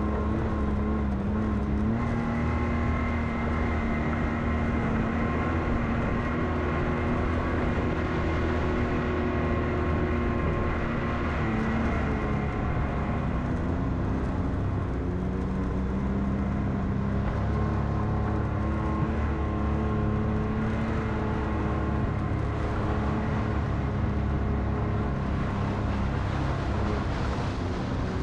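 Side-by-side UTV engine running steadily while driving a rough dirt trail, its pitch drifting slightly up and down.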